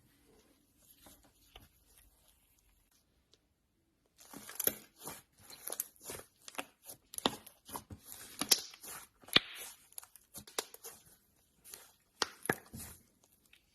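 Slime being squeezed and stretched by hand, giving quick runs of sharp crackles and pops after a short quiet start.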